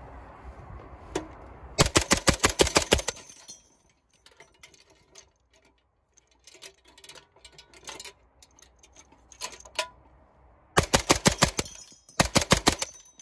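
Vickers machine gun firing three short bursts, each a rapid even string of shots: one about two seconds in, then two more close together near the end, with light mechanical clicks in between. The belt feeds cleanly from the box on the belt box carrier, with no stoppage.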